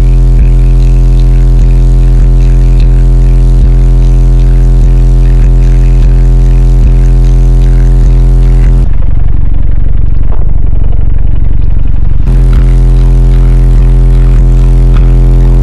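A car audio subwoofer system playing a loud, steady deep bass tone, heard inside the cabin and distorted from its sheer level. About nine seconds in, the sound turns rough and murky for roughly three seconds, then the steady tone returns.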